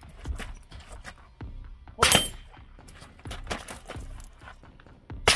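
Shots from an AR-style rifle fitted with a .22LR conversion bolt: one sharp crack about two seconds in and another right at the end, with fainter knocks between.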